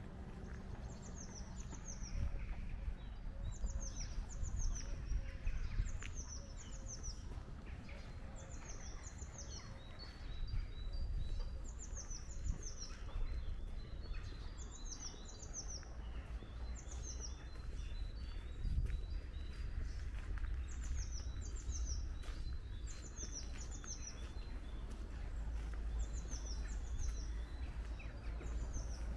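A small songbird singing a short phrase of two or three high, falling notes, repeated every few seconds, with other birds chirping faintly and a steady low rumble underneath.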